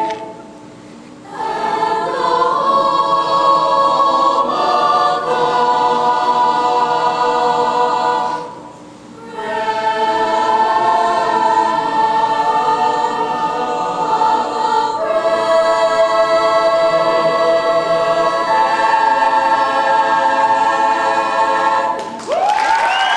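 A choir singing unaccompanied in long held chords, breaking off twice briefly between phrases. Near the end the singing stops and applause breaks out.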